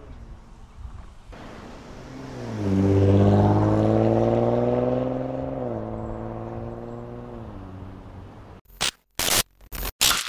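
Audi SQ5's 3.0T V6 running through an AWE Touring Edition exhaust in regular mode, accelerating past: the exhaust note climbs in pitch and loudness, drops in pitch a little past the middle, then fades away. Near the end come a few short, sharp electronic glitch hits.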